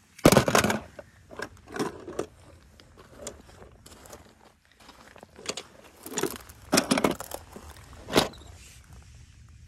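Irregular crunching of loose stones underfoot, the sound of footsteps on a gravel and rock pile. There is a sharp crunch right at the start and another about 8 s in.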